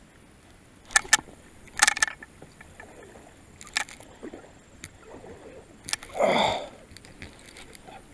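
Sharp clicks and knocks from a baitcasting rod and reel handled right against the camera, several in the first four seconds, then a louder, longer noise about six seconds in that lasts around half a second.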